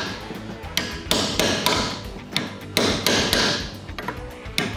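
Hammer striking a flat caulking iron to pack poured lead into the hub of a cast iron pipe joint, a run of sharp metallic taps about two or three a second. The iron is being worked around the middle of the joint to set the lead tight and seal it.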